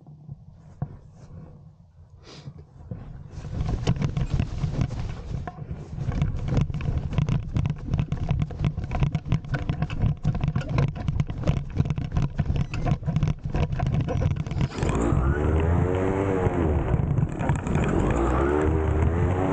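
Loud rushing, buffeting noise from about 3 s in while the paraglider wing is pulled overhead. About 15 s in, the SP140 electric paramotor's motor and propeller come up to takeoff power with a whine that wavers in pitch.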